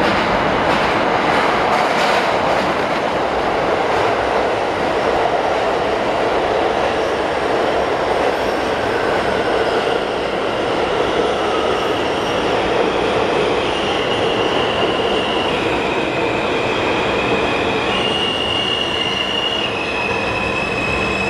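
R160A subway train running into an underground station and braking to a stop: a steady, loud rumble of wheels on rail, with clicks over the rail joints in the first few seconds. From about halfway, high steady whines appear that step up and down in pitch several times as the train slows.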